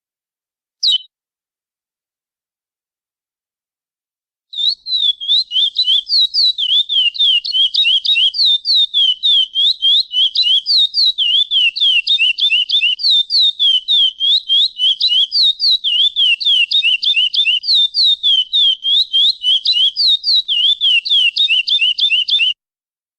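Chestnut-bellied seed finch (curió) singing a 'praia clássico' style song: one short whistled note about a second in, then, after a pause, a long fast run of clear, high, down-slurred whistled notes, several a second, that stops near the end.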